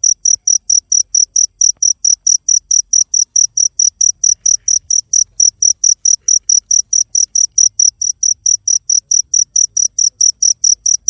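A cricket chirping loudly and steadily: a high, even pulse close to five times a second, never pausing.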